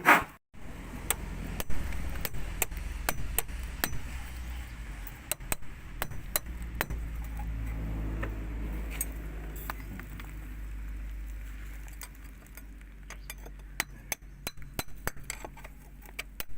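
Hand tools at work on a building job: scattered light taps and metallic clinks at irregular intervals, over a steady low rumble that eases off in the last few seconds.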